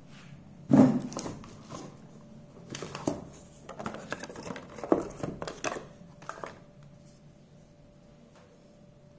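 Cardboard phone box being handled: knocks, scrapes and rustles as the box and lid are moved and a smartphone is lifted out, the loudest knock about a second in. It goes quieter from about seven seconds on.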